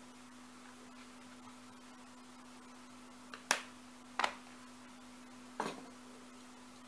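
Three sharp light knocks about halfway through, a second or so apart, as a metal pen and a suede leather wallet are put down and handled on a cutting mat, over a faint steady hum.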